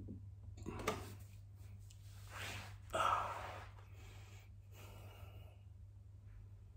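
A man's audible breathing: a few breathy exhales, the loudest about three seconds in, with a short sharp click just under a second in and a steady low hum underneath.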